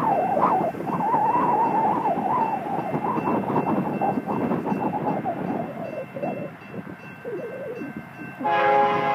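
Gusty wind noise on the microphone with a railroad crossing bell ringing faintly; about a second before the end a locomotive's air horn sounds loudly as a train approaches the crossing.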